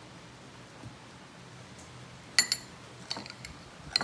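Metal spoon clinking against a metal bowl as sugar is stirred: a few sharp, ringing clinks in pairs, starting about halfway in.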